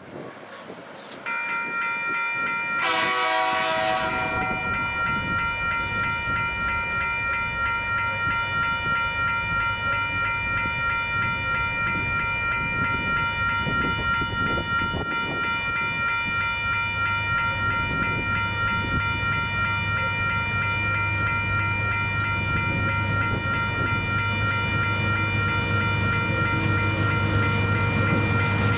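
Level crossing warning bells ringing steadily from about a second in. A diesel locomotive's horn sounds one blast a few seconds in and again right at the end, while the TasRail TR-class locomotives' engines grow steadily louder as the freight train approaches.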